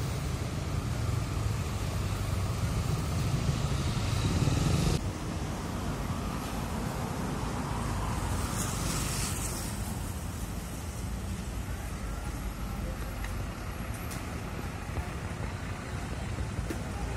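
Large diesel coach engines: a bus pulls away with a heavy low rumble. An abrupt cut about five seconds in brings a second coach approaching and passing, with a brief hiss about nine seconds in.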